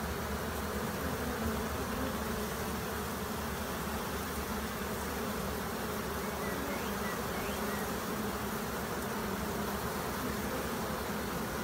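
A large swarm of honeybees humming steadily as it walks up a sheet into a hive.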